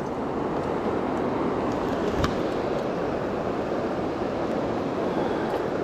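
Steady rushing of flowing river water, with a single small click about two seconds in.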